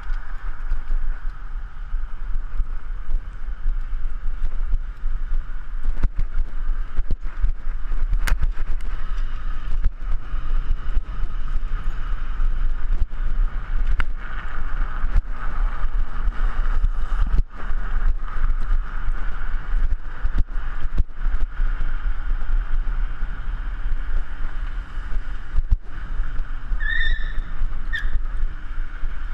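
Steady wind rush and rumble on a bicycle-mounted GoPro as the bike rides along a sidewalk, with occasional sharp knocks as it jolts. Two short high chirps come near the end.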